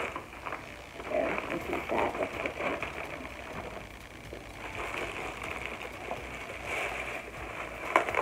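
Plastic packaging rustling and crinkling as a tote bag is unwrapped by hand, on and off, with a louder crackle near the end.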